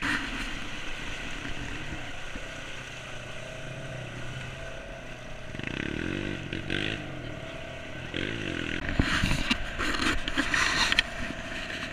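ATV engine running while its tyres churn through deep muddy water, then revving harder in several surges near the end.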